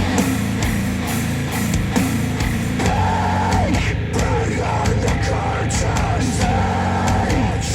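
Heavy rock music played back through Focal Chora 806 bookshelf speakers driven by a NAD C 338 integrated amplifier, loud, with a strong bass line and a wavering melody coming in about three seconds in.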